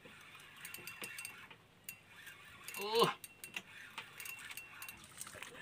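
Fishing reel being cranked against a hooked fish, its mechanism giving off faint, irregular clicks and ticks: a noisy reel. A short voice exclamation about three seconds in.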